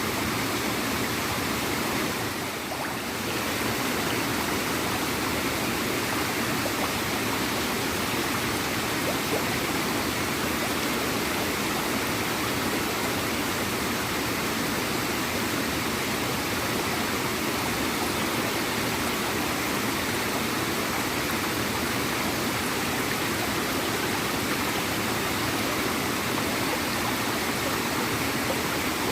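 Quiet waterfall gurgling and splashing into a river: a steady rush of flowing water that dips slightly for a moment about two and a half seconds in.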